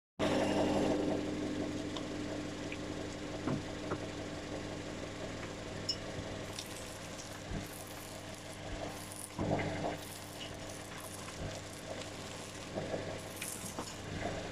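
Car steering rack knocking: a few short knocks and thumps over a steady engine hum, the sign of a worn steering rack.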